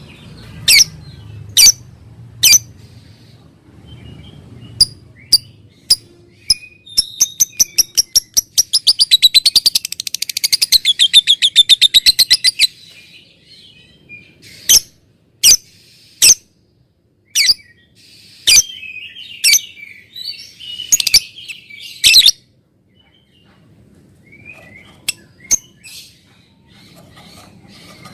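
Lovebird calling: sharp, high single chirps about a second apart, then a long rapid trill of quickly repeated notes lasting about five seconds (the 'ngekek' chatter), followed by more sharp chirps and bursts of chatter.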